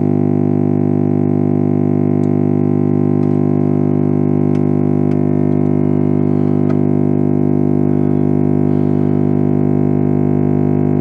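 Steady, loud electronic test tone, a low buzzing note rich in overtones, holding at a constant level: the signal generator's modulated test signal played through the Ekco AD75 valve radio's loudspeaker while its IF stages are being aligned.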